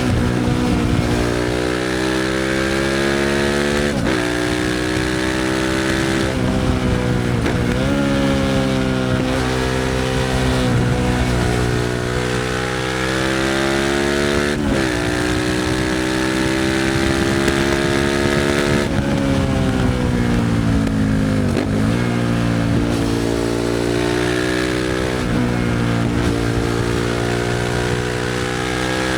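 Suzuki SV650's 645 cc V-twin through a Leo Vince aftermarket exhaust, pulling up through the gears. The pitch climbs steadily in each gear and drops sharply at each of several shifts. About two-thirds of the way through the revs fall away and dip, then climb again.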